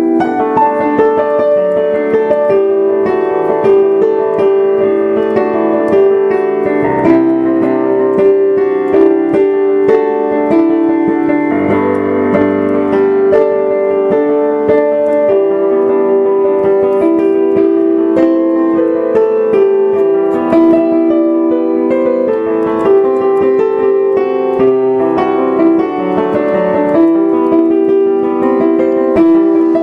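Solo piano played spontaneously as an improvisation: a steady flow of struck notes over held chords.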